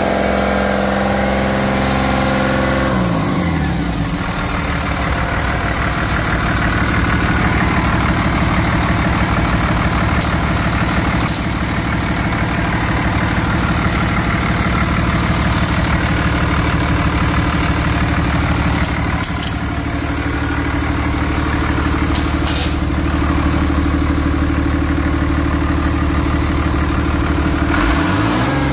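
1999 Cummins ISB 5.9 inline-six turbodiesel running: it drops from a raised speed to a steady idle about three seconds in, then picks up speed again near the end.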